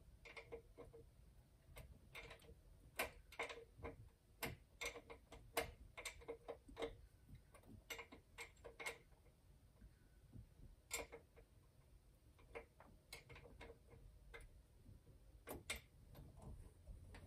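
Faint, irregular metallic clicking of a hand ratchet wrench being worked back and forth on a nut in a boat's engine bay, in short runs with pauses between.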